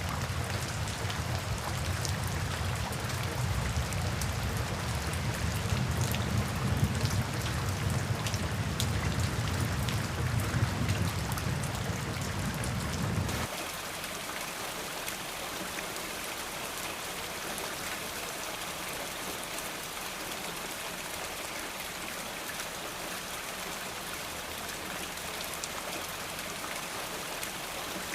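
Steady rain with the patter of individual drops over a deep rumble. About halfway through, the rumble cuts off abruptly, leaving a thinner, even rain hiss.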